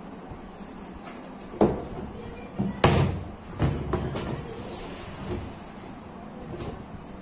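Thin fibreboard back panel of an IKEA GERSBY bookcase being laid onto the carcass and shifted into place by hand: a series of knocks and thuds as the board meets the frame, the loudest about three seconds in, with smaller knocks toward the end.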